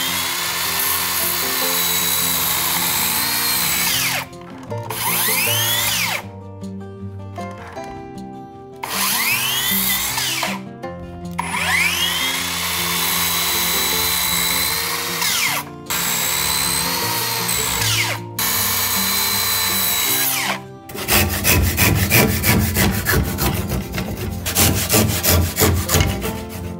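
A cordless circular saw spins up with a rising whine, cuts through a wooden timber, and winds down. It does this about six times in a row, making the passes for a tenon. For the last six seconds or so a handsaw cuts with rapid, even strokes. Background music plays underneath.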